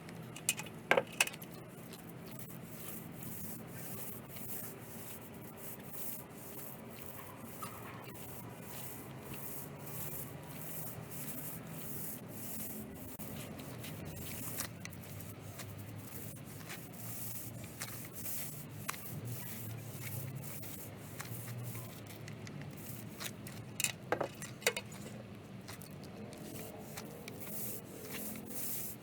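Repeated rubbing and scraping strokes, a few a second, of a tool spreading liquid waterproofing coating over a roof, with a few sharp knocks about a second in and again near the end.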